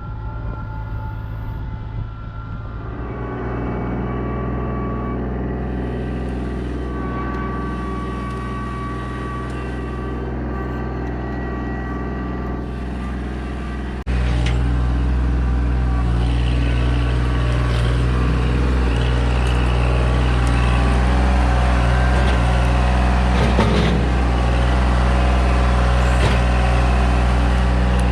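Chainsaw on an Alaskan chainsaw mill running steadily under load, ripping lengthwise through a cherry log. It gets abruptly louder about halfway through.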